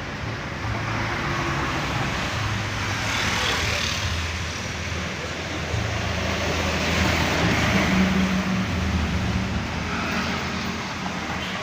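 Motor vehicle traffic going by: a steady engine hum with passing noise that swells twice, about three seconds in and again around the middle.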